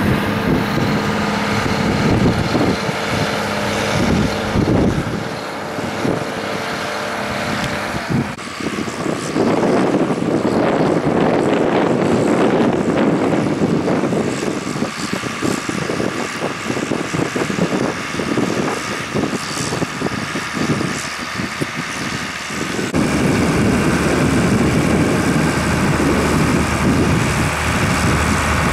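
Tractor diesel engines working under load in the field. At first a tractor pulling a slurry tanker is close by, with a steady engine hum. Then a Case IH 1455 drawing a power harrow and seed drill is heard from further off, and the sound changes twice.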